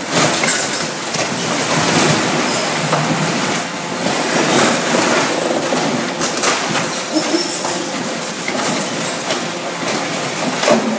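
A hydraulic grab crushing and tearing apart a small boat's thin hull: continuous crunching, cracking and scraping, with many sharp cracks throughout.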